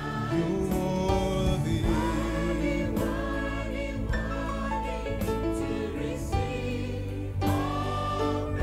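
Choir with a man and a woman leading, singing a slow gospel worship song in long held notes, with steady low instrumental notes underneath.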